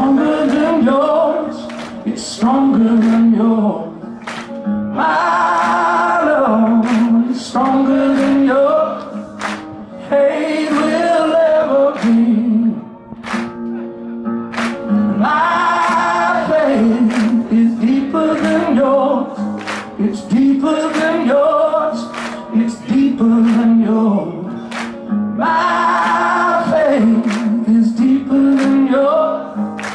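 Live rock music: a male lead singer sings long, wavering held notes into a microphone over a steady sharp beat.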